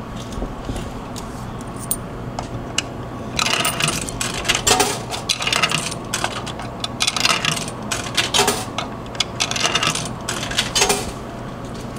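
Coins being pushed one after another into a drink vending machine's coin slot, each clinking as it drops through the coin mechanism, a run of clinks over several seconds.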